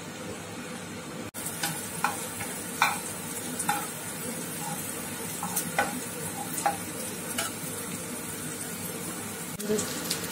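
Ginger-garlic paste sizzling in melted butter in a coated frying pan while a steel spatula stirs it, scraping and tapping against the pan every second or so; the paste is being fried until its raw smell is gone. The sound briefly cuts out about a second in.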